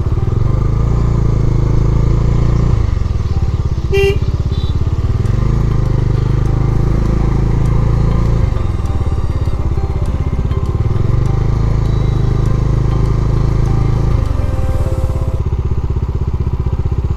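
Motorcycle engine running on the move, its note falling and rising several times as the throttle and speed change. A brief high-pitched tone sounds about four seconds in.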